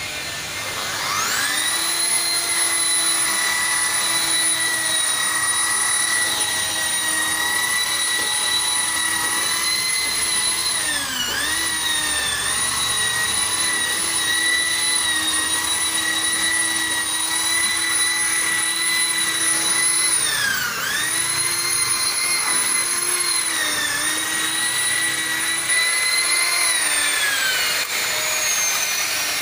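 Electric rotary car polisher working compound on car paint: its motor spins up about a second in and runs with a steady high whine that dips briefly twice, then winds down near the end.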